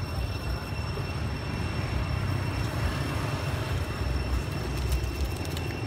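Steady low outdoor rumble, uneven in strength, with two faint, steady high tones running over it.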